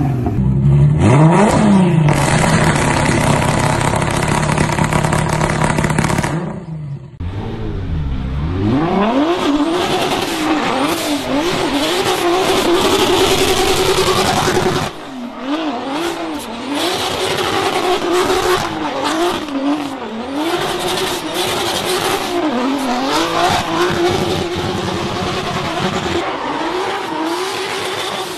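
Audi RS5 with a swapped-in VR6 engine revving hard while doing burnouts, the tyres spinning. The note is held high and steady for about six seconds, dips briefly, then rises and falls rapidly as the throttle is worked.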